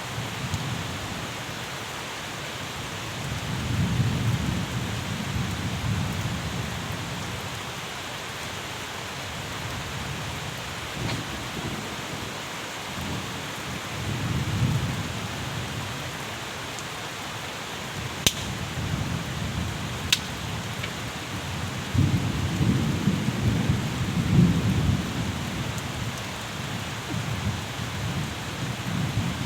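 Steady rainfall hissing, with low thunder rumbling up and fading several times, loudest near the end. Two sharp ticks stand out about two seconds apart in the middle.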